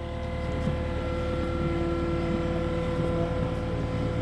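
Skid steer loader's engine running steadily, getting louder in the first second as the machine pulls away.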